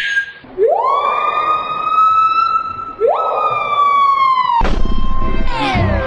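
Siren sound effect: two wails, each rising quickly and then holding with a slow fall in pitch. A sharp crack comes about three-quarters of the way through.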